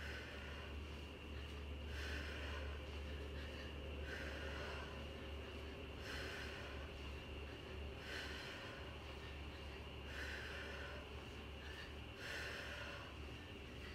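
A woman's sharp breaths, one about every two seconds, in time with the strokes of her kettlebell swings.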